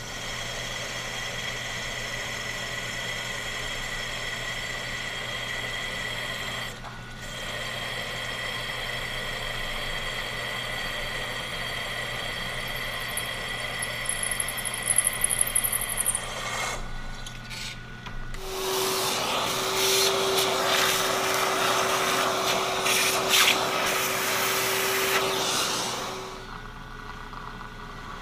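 Milling machine spindle running steadily while a 5/16-inch split-point drill cuts into a cast iron handwheel boss. After about seventeen seconds the drilling stops, and a shop vacuum runs for about eight seconds, sucking up the cast iron chips, then cuts off abruptly.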